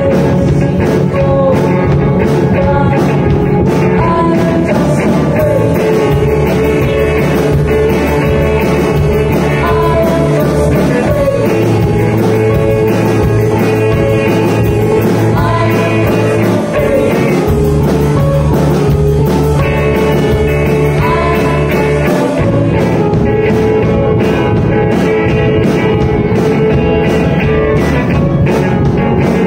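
Live rock band playing a song, with electric guitar, keyboard and drums under two singers.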